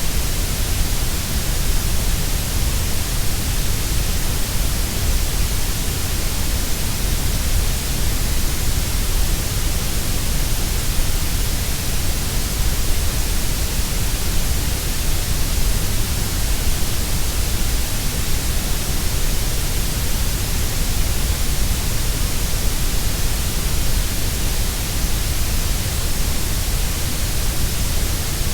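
Steady grey noise: an even, unchanging hiss with more weight in the deep lows and the highs than in the middle.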